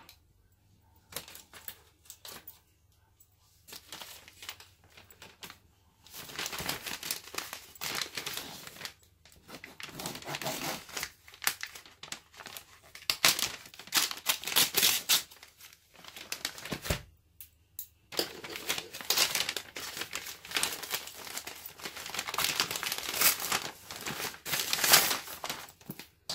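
Plastic courier mailer bag crinkling and tearing as it is ripped open by hand and a cardboard box is pulled out, in bursts of rustling, with a single dull knock about midway.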